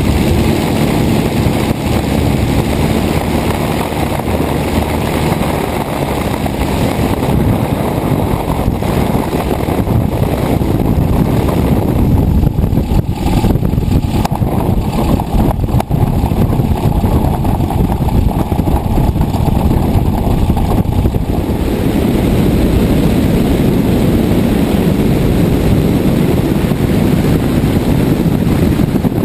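Clutton FRED homebuilt light aircraft's engine and propeller running, with wind rushing past the open cockpit while the aircraft comes in to land on a grass strip. The sound thins out from about halfway and grows fuller again for the last several seconds as it rolls along the ground.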